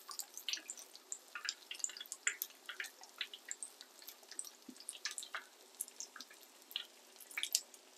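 Battered potato sandwich frying in a shallow pan of hot canola oil: irregular sizzling crackles and pops, several a second.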